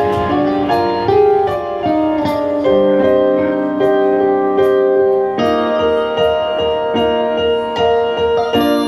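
Band playing the instrumental introduction to a lyrical Hokkien ballad, led by keyboard with held chords and a slow melody; no singing yet.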